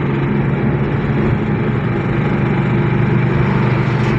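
Steady engine and road noise from inside a moving vehicle's cabin on a highway, a constant low hum with no change in pitch.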